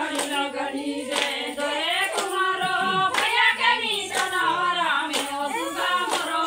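Group of women singing a Chhattisgarhi Suwa (Sua) folk song together, clapping their hands in time about once a second.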